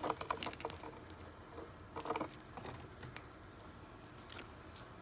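Soft, scattered clicks and light rustling of a beaded necklace being handled in the fingers, with a short cluster of clicks about two seconds in.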